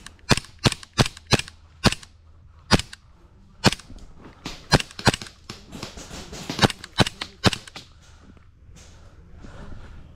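Airsoft gunfire: about a dozen sharp single cracks at irregular intervals, fading out after about eight seconds.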